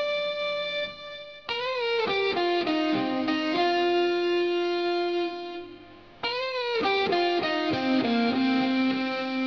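Background instrumental music: a slow melody of held notes that bend in pitch as each phrase starts, with new phrases coming in about one and a half seconds and six seconds in.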